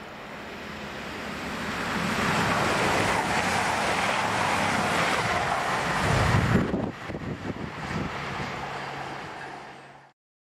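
CrossCountry Voyager diesel-electric multiple unit running through the station at speed: a rising rush of wheel and air noise, a heavy gust of wind on the microphone as the front passes about six seconds in, then the coaches rushing by until the sound cuts off suddenly near the end.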